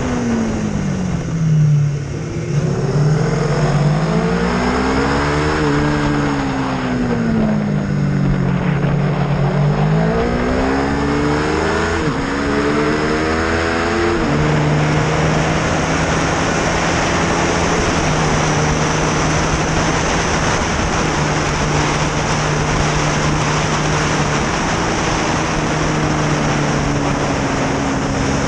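Racing motorcycle engine at speed, heard onboard with wind rush. Through the first half the revs climb and fall several times, with quick drops at gear changes. From about halfway the note holds steady at constant throttle through a long corner.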